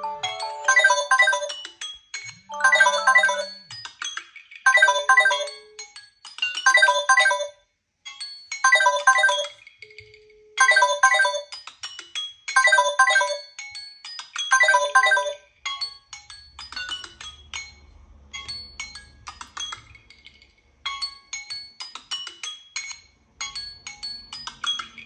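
Samsung Galaxy phone tones playing from the phone's speaker: a short chiming melody repeats about every two seconds. About sixteen seconds in, it gives way to a different tone, a quicker run of short chimes.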